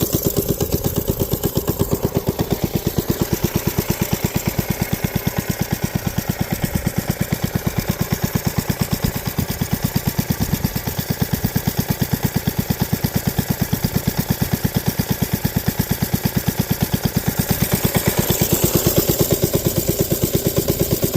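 Coleman B200R minibike's single-cylinder four-stroke engine idling steadily as it warms up, with quick even firing pulses. The carburetor has just been swapped in a bid to cure its stalling under hard acceleration. It runs a little louder shortly before the end.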